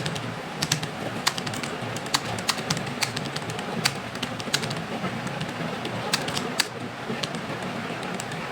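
Computer keyboard typing: irregular key clicks, a few a second, over a steady background hiss.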